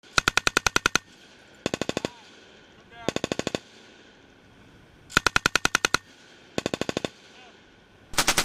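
Machine gun firing short bursts of automatic fire, about ten rounds a second: six bursts of roughly six to ten shots each, separated by pauses of about a second, the last burst starting near the end.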